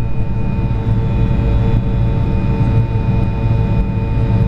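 Steady airliner cabin noise in flight: a loud, even rumble of the jet engines and airflow, with several steady whining tones over it.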